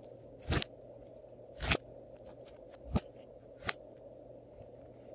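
Glossy slime being handled in a silicone hexagon mold: four short, sharp pops and crackles about a second apart over a faint steady hum.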